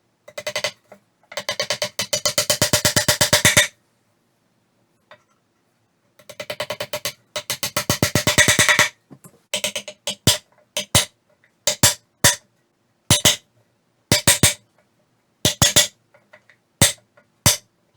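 Tools striking wood during woodworking: a few taps, then two fast runs of knocks at about ten a second that speed up toward their ends, then single and paired knocks roughly a second apart.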